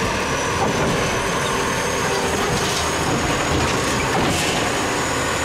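Automated side-loader garbage truck working its hydraulic arm to grab and lift a wheeled trash cart over the hopper, diesel engine running. A thin, steady high whine runs under a dense mechanical noise, with a couple of light knocks.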